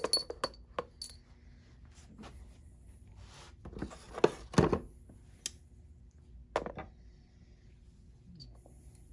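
Steel rivet-setting tools clinking and clattering as they are picked up and laid down on a hard work block, in scattered clicks and knocks with a cluster about four seconds in.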